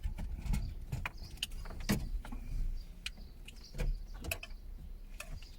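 Irregular small clicks and knocks of car-stereo wiring and plastic connectors being handled and plugged in.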